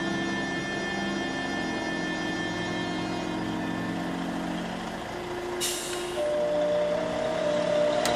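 A heavy vehicle's air brakes give a short, sharp hiss about five and a half seconds in, and the engine then runs louder. Music fades out before the hiss.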